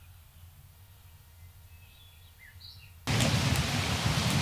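Faint bird chirps over quiet outdoor background, then about three seconds in a sudden, loud, even rushing noise like rain sets in.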